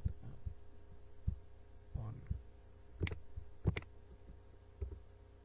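A few scattered clicks from a computer mouse and keyboard, the two sharpest a little over three seconds in, over a steady low hum.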